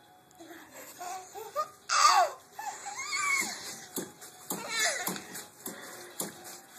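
Baby girl squealing and babbling in short, high, gliding bursts, the loudest about two seconds in. In the second half, light knocks come about twice a second as she bounces in the jumper.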